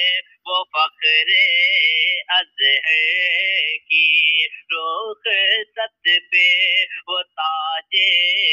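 A man singing a devotional poem without instruments, in short melodic phrases separated by brief breaks.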